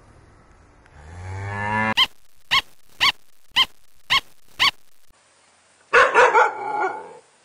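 A series of animal calls: a low cow moo rising in pitch, then six short, high-pitched calls about half a second apart, then a harsher burst of calls near the end.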